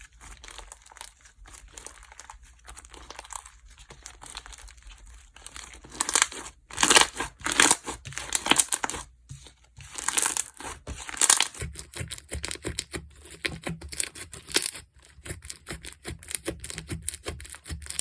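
Slime being handled by hand: squished, stretched and pressed, with a faint crackle at first, louder stretching sounds midway, then a quick run of small clicks and pops in the second half.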